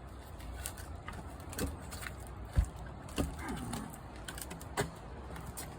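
Scattered knocks and clicks from a heavy log being levered and rolled by hand, with one sharp thump about two and a half seconds in.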